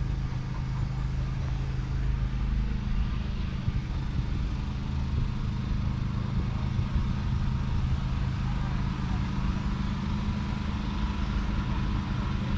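Foden FE6 two-stroke six-cylinder diesel engine idling steadily, a low even drone that holds one speed throughout.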